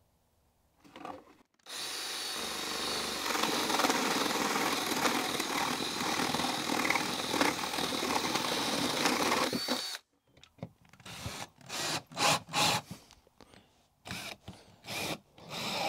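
Ryobi cordless drill with a paddle bit boring through OSB board, running steadily for about eight seconds and stopping abruptly. A series of short, separate bursts of sound follows.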